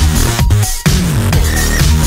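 Electronic dance music with a heavy bass line that slides in pitch over a steady beat.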